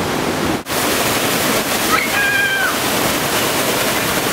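Waterfall pouring steadily into a pool, a constant loud rush of water. The rush cuts out for an instant about half a second in.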